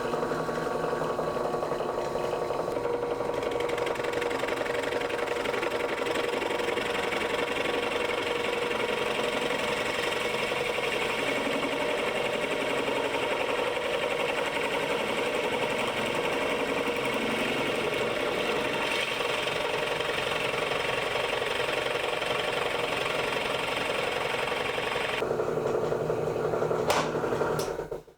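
Drill press running steadily as a Forstner bit bores a hole into plywood. The sound changes about 25 seconds in, with a few clicks near the end, and then cuts off abruptly.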